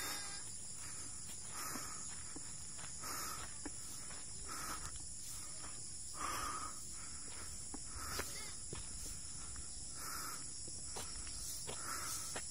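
Insects chirring steadily in a high, continuous chorus, with a short call repeating about every second and a half.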